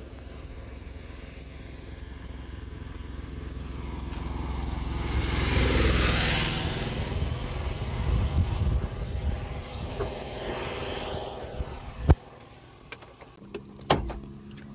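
A vehicle passing on a wet road, its tyre hiss swelling and fading over a few seconds. Near the end a sharp clack as the Wagon R's driver door opens, then a click as the bonnet release lever beside the footwell is pulled.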